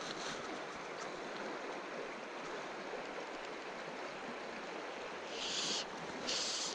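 Steady rush of river water flowing through a shallow riffle. Near the end come a few short, high hissing bursts, each about half a second long.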